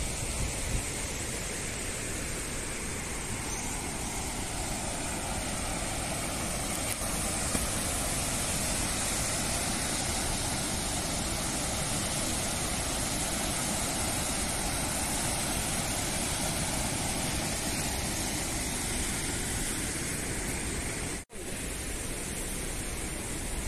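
Water rushing out of the Agoyán dam's open gates into the river below: a steady, even rush of white water. It cuts out for an instant about 21 seconds in, then carries on.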